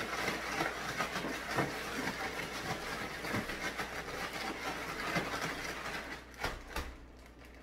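Plastic bag crinkling and rustling as sliced cucumbers in vinegar are shaken and tossed inside it to mix the salad. The shaking eases off about six seconds in, just after a couple of sharp knocks.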